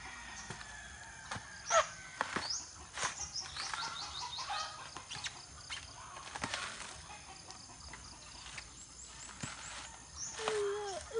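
Green coconuts being husked by hand: repeated knocks and fibrous tearing as the husks are struck and ripped apart. High bird chirps come and go, and chickens cluck near the end.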